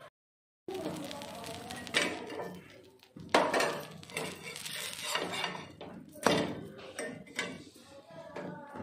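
Metal spatula scraping and clanking against a flat tawa griddle as a toasted sandwich is turned and pressed, with several sharp knocks of metal on metal.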